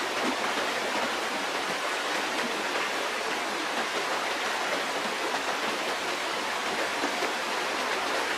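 Steady rushing noise, like running water.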